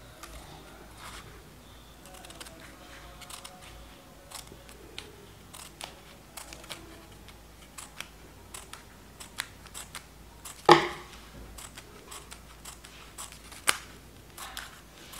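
Scissors snipping a folded strip of paper into very small fringe cuts: many short, crisp snips at an irregular pace, with one much louder knock about ten and a half seconds in.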